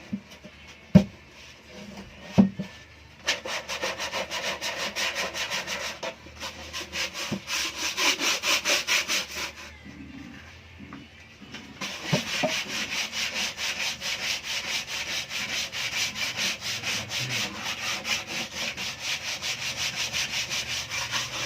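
Fast back-and-forth strokes of a hand tool scraping on wood, about five a second, in two long runs with a pause of a couple of seconds between. A few sharp knocks come before the first run.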